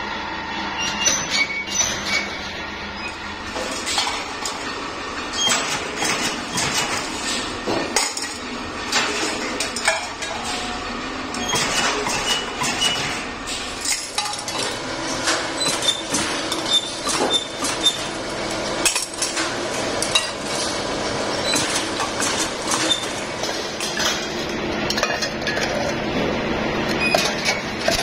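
Sheet-metal air filter parts clinking and clattering against each other as they are handled, in many irregular clinks with short metallic pings.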